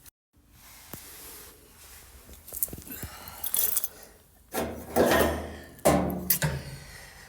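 Scraping, rubbing and clattering of parts being handled during the dryer repair, with two louder scraping sounds about five and six seconds in.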